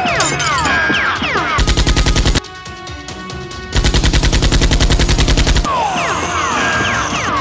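Rapid automatic gunfire sound effect in two bursts, a short one and then a longer one, over background music, with several falling whistles before and after.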